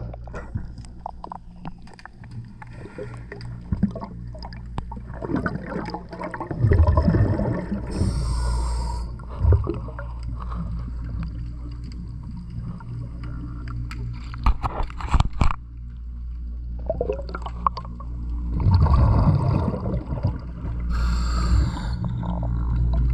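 Underwater sound: a steady low machine hum with scattered clicks and knocks, broken several times by louder bursts of bubbling and rushing water.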